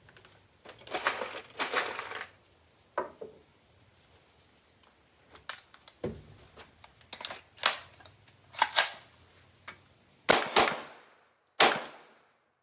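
MPA Defender pistol firing single shots about a second apart in the second half, each with a short echo trailing off. Quieter clicks and rustling of handling come before the shooting.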